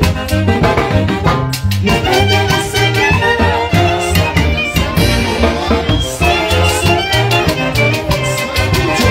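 Live Andean orquesta playing a huayno: brass and saxophones carry the tune over a steady drum-kit beat.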